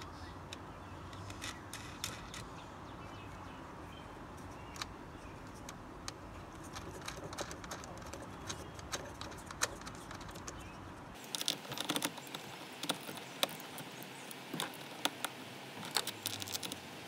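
Irregular light metallic clicks and clinks of hand tools and screws as the side-mirror's mounting screws are secured inside the car door, becoming busier about two thirds of the way through.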